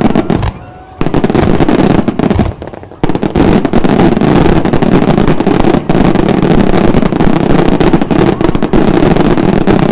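Fireworks finale barrage: aerial shells bursting in quick succession, a dense, unbroken string of bangs and crackles. It thins briefly twice in the first three seconds, then runs loud without a break.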